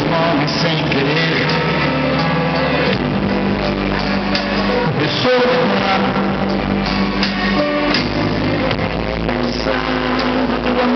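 Live band music played through a concert sound system: acoustic guitar with the band, in an instrumental passage without singing.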